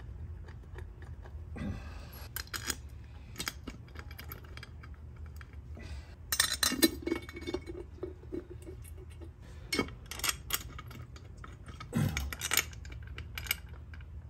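Scattered light metallic clinks and taps of screws being set by hand into a chrome cam cover on a Harley-Davidson Twin Cam 96 engine, with louder clusters about six and a half seconds in and again near twelve seconds.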